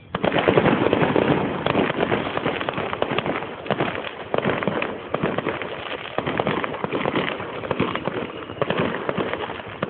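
Fireworks display going off: a sudden loud burst at the start, then continuous dense crackling and popping of many shells, with louder surges every few seconds.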